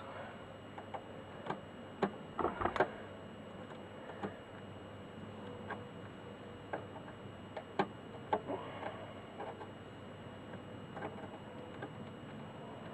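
Scattered light clicks and taps of pliers handling small metal parts while a wire is fitted to a socket, with a short cluster of clicks about two and a half seconds in.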